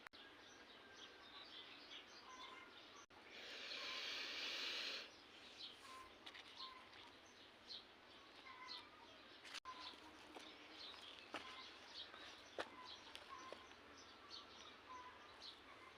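Small birds chirping and calling faintly, with one burst of hiss lasting about a second and a half a little over three seconds in.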